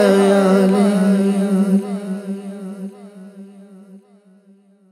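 Closing of an unaccompanied naat: a held hummed vocal drone with a sung line wavering above it, both fading out over about four seconds.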